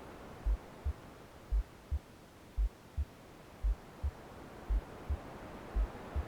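Slow, steady heartbeat sound: a deep double thump, a stronger beat then a softer one, about once a second. It sits over a soft rushing white noise that thins in the middle and swells back near the end.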